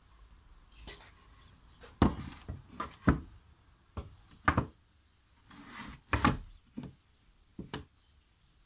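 Old wooden spirit level and wooden boards being handled and set down on a wooden workbench: a series of about eight dull knocks of wood on wood, with a short scuff of wood sliding between them.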